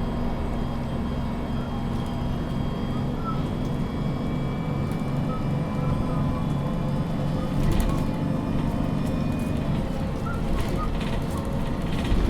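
Onboard sound of a MAN NG 313 CNG articulated city bus under way, its gas engine running with a steady low drone. There are a few knocks and rattles about eight seconds in and again near the end.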